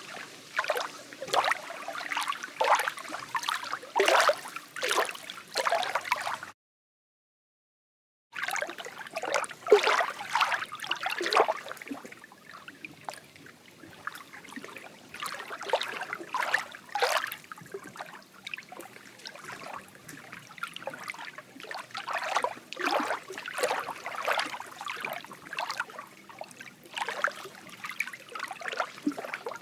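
Lake water gurgling and lapping in small, irregular splashes over a soft steady hiss. It cuts out completely for about two seconds a little after six seconds in.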